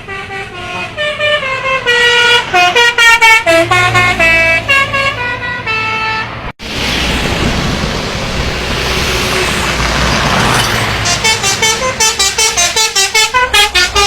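Telolet bus horn, a multi-trumpet air horn set, playing a quick melodic tune of short stepped notes. After an abrupt cut about six and a half seconds in there is steady engine and road noise. Another horn tune starts around eleven seconds in.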